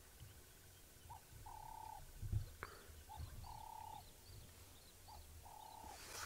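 A dove cooing faintly, a short note followed by a longer one, the pair repeated about every two seconds, with faint small-bird chirps behind it. A single knock about two and a half seconds in.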